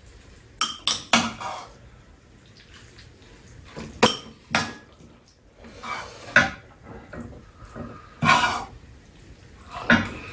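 Metal ladle and spoons clinking and scraping against bowls and a frying pan as chicken topping is ladled over rice and mixed in. The clinks come singly and in small clusters, a second or two apart.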